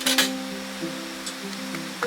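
Background music: an acoustic guitar playing held chords that change every half second or so over a light steady hiss, with a couple of sharp clicks right at the start.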